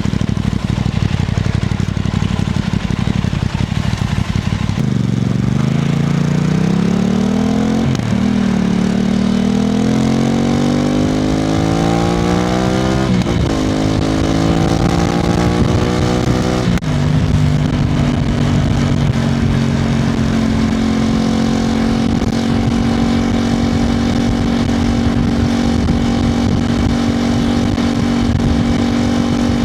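Aprilia RS660 Extrema's parallel-twin engine pulling away: its pitch climbs through three gears, dropping sharply at each upshift, then holds steady at a cruise.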